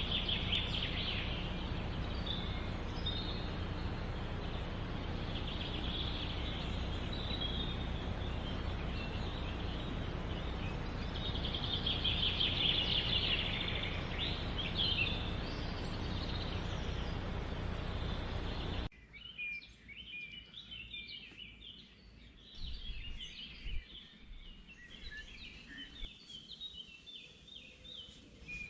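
Birds calling over a steady rushing outdoor noise; about two-thirds of the way through, the noise cuts off suddenly, leaving a quieter bed of many quick, high bird chirps.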